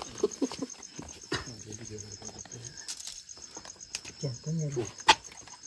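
Crickets chirping in a steady, fast, evenly pulsing high trill, with a few sharp taps and clicks over it.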